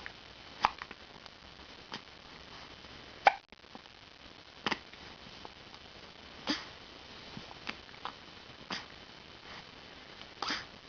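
A baby hiccuping: short, sharp hiccups every one to two seconds, about eight in all, the loudest about a third of the way through.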